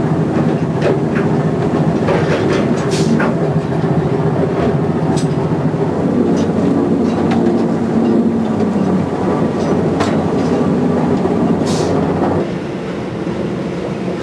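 Fishing trawler's engine and deck machinery running with a steady loud drone, with occasional sharp knocks and clanks from the deck gear. The drone drops somewhat near the end.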